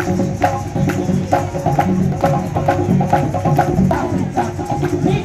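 Live percussion music: conga drums playing under a sharp wooden click that keeps a steady beat, with a melody line over them.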